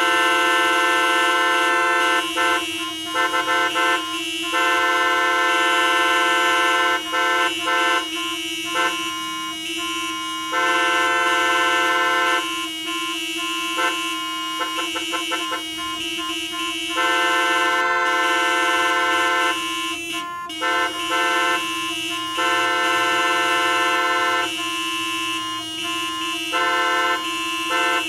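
Many car horns honking at once in a traffic jam. Mostly long held blasts with brief breaks, and bursts of quick toots in between, over a faint low rumble of traffic.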